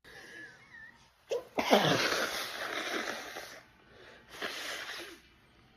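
A woman sneezing as part of a sneezing fit, which the uploader tags as allergic rhinitis. A wheezy intake of breath comes first, then a loud sneeze about one and a half seconds in that trails off over a couple of seconds, and a shorter second gust of breath comes near the end.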